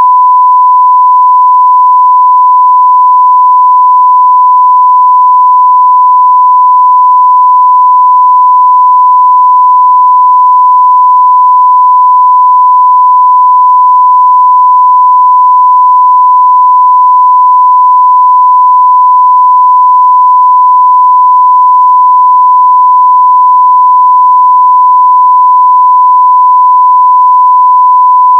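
Loud, unbroken 1 kHz sine-wave reference tone, the broadcast line-up tone that goes with colour bars, held at one steady pitch.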